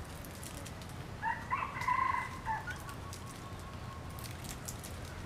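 A rooster crowing once: a pitched call of several notes lasting about a second and a half, with a thin tone trailing off after it.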